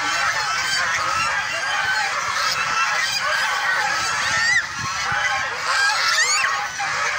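A crowded flock of domestic ducks and geese calling non-stop, many honks and quacks overlapping into one continuous din.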